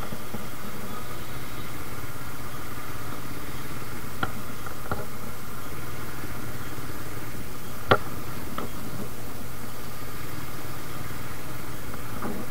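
Suzuki Gixxer motorcycle's single-cylinder engine running steadily while riding in city traffic, heard from on the bike. There are a few short, sharp sounds, the loudest about eight seconds in.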